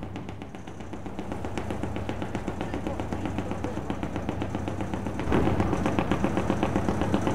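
Diesel engine of the 1948 single-screw harbour tug Kent running, a rapid, even knocking beat over a steady low hum, louder from about five seconds in.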